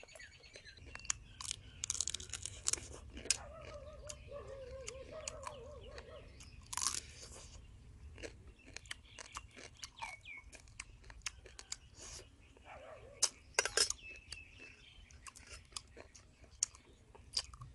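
Close-up eating sounds: fried rice field crab being bitten and chewed, the crisp shell crunching in many short, irregular cracks. A brief wavering voiced sound is heard a few seconds in.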